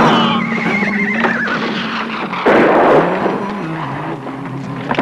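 A horse whinnying: one long neigh falling in pitch over about the first second and a half, over background music. A short loud rush of noise comes about two and a half seconds in.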